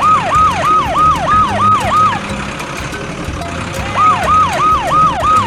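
Emergency-vehicle siren in a fast yelp: about three or four quick rising-then-falling whoops a second. It sounds in two runs, breaking off for about two seconds in the middle.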